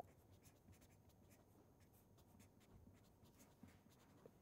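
Faint scratching and tapping of a marker pen writing on paper, in short strokes.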